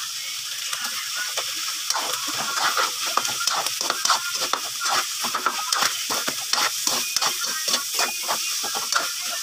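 Chopped pork sisig with mayonnaise sizzling in a hot pan while a spatula stirs and scrapes it. The scraping strokes start about two seconds in and come quickly, several a second, over the steady sizzle.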